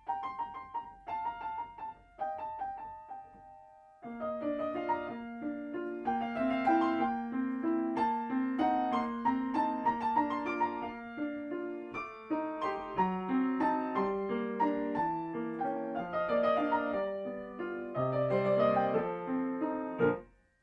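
Solo piano playing a children's étude: a few light single high notes for the first four seconds, then fuller playing with a quick repeating accompaniment figure under the melody, pausing briefly near the end.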